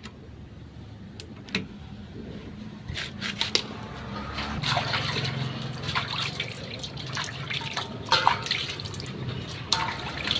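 Liquid trickling, with scattered sharp clicks and knocks of handling, starting about three seconds in over a low steady hum.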